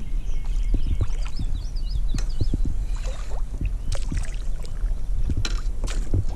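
Kayak paddle stroking and splashing in the water beside a plastic sit-on-top kayak, with frequent low knocks and several sharper splashes in the second half.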